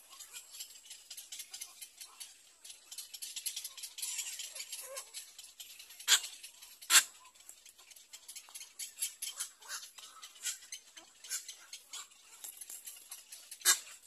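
Egret nestlings chattering in rapid, dry clicking calls, with three sharper, louder clicks: two close together midway and one near the end.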